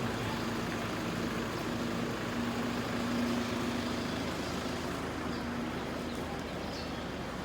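Motor vehicle running: steady engine hum over road noise, the hum fading out about five and a half seconds in.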